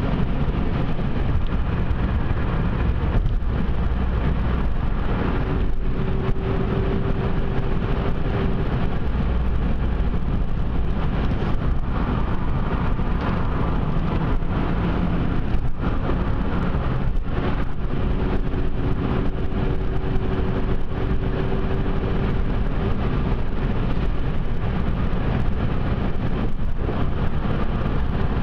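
A car driving at speed: steady engine and tyre noise on the road, with a low hum that comes in for a few seconds twice.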